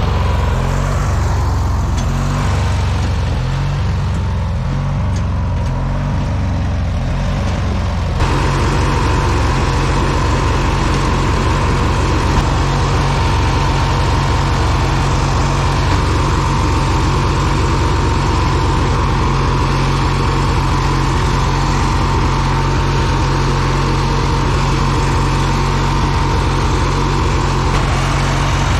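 Riding lawn mower's small engine running steadily under way, a constant low drone; about eight seconds in a steady hiss joins it over the engine.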